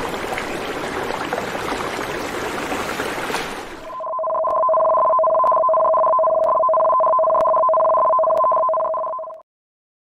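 A steady rushing noise, then about four seconds in a two-tone alert tone: two steady pitches held together with a faint tick about once a second, cutting off suddenly after about five and a half seconds. It is the warning alarm that sounds as the tsunami warning is issued.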